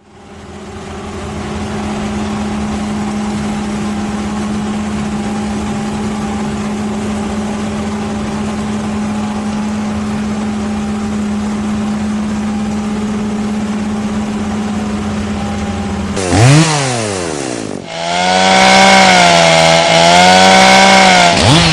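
Chainsaw engine running at a steady high pitch. Near the end its pitch drops and climbs again as it is revved, then after a short break it runs louder with a wavering pitch.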